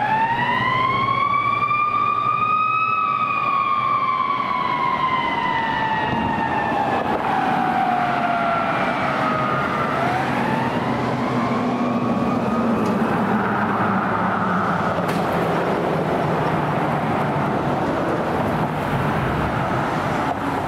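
Fire truck siren wailing over engine and road noise. It climbs to its highest pitch about three seconds in, falls slowly, then climbs again about ten seconds in before fading away as the truck pulls off.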